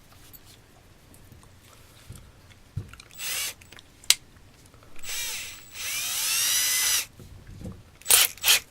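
Power drill's motor spun up for about two seconds, its whine rising in pitch, with a few clicks and rattles before and after it. It is a test run after a bit has just been taken out for the drill.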